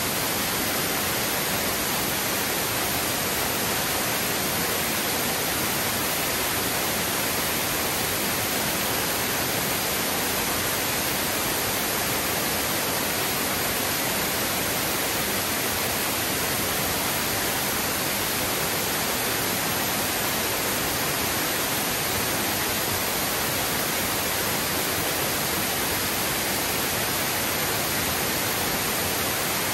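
A large waterfall's falling water, a steady, even rush.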